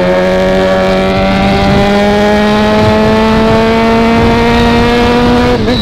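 Honda CB1000R's inline-four engine pulling under acceleration, its pitch climbing slowly and steadily, then dropping sharply near the end as the rider shifts up.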